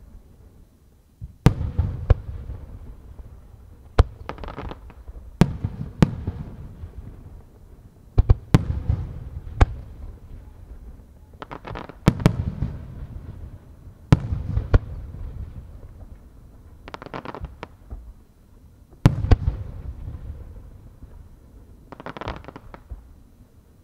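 Aerial firework shells bursting one after another, a dozen or more sharp booms, each trailed by a low rolling echo. Several bursts are followed by a brief crackle.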